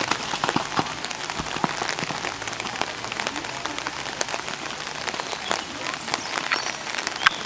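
Rain falling steadily, with many irregular drop ticks close to the microphone.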